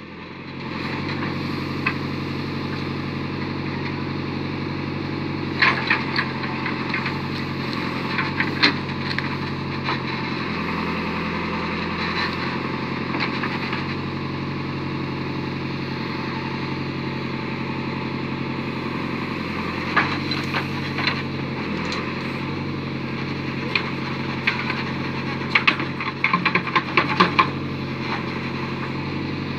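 Backhoe loader's diesel engine running steadily under load while the bucket digs into soil and stones and tips them into a trailer. Clusters of knocks and scrapes from the bucket and falling earth and stones come several times, thickest near the end.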